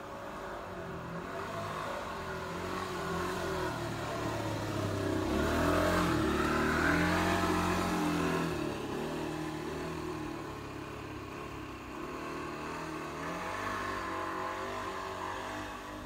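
A motor vehicle's engine passing close by. Its pitch rises and falls as it swells to its loudest in the middle, then fades away.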